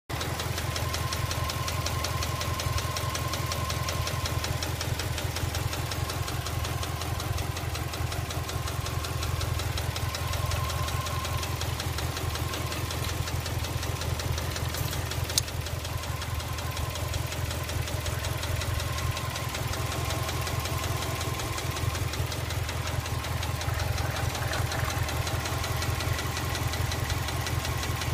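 Subaru EJ206 flat-four engine running steadily with a fast, even knock from inside the engine, which the owner judges calls for a rebuild. There is a single sharp click about halfway through.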